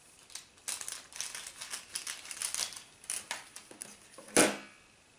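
Small plastic and foil powder sachets from a Japanese DIY candy kit crinkling and rustling as they are handled and shaken out into plastic trays, with one louder, sharp crackle a little past four seconds.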